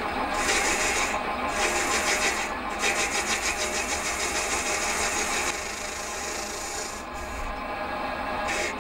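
Metal lathe turning down a cast iron bar with a carbide insert tool: a steady machine hum under a dry, scratchy cutting noise that pulses quickly and evenly. About five and a half seconds in, the cutting noise drops a little and the pulsing fades.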